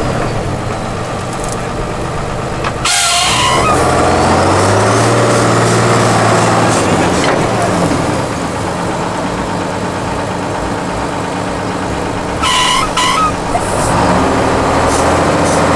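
Tatra 8x8 trial truck's diesel engine running under heavy load as the truck crawls up a steep bank, its note rising to a higher steady pitch for a few seconds. Two short, loud bursts of hiss cut in, about three seconds in and again near the end.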